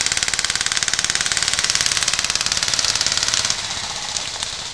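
Airsoft gun firing on full auto: one long burst of rapid, evenly spaced cracks that drops off about three and a half seconds in, with a fainter rattle after.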